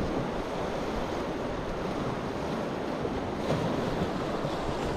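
Sea surf breaking and washing against a rocky shoreline, a steady rushing noise with wind buffeting the microphone.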